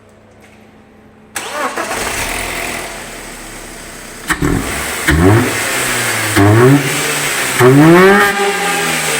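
BMW E46 engine started about a second in and settling to idle, then revved in three rising blips, the last one the longest and loudest, breathing through an aftermarket sport air filter. A sharp click comes a little before the first blip.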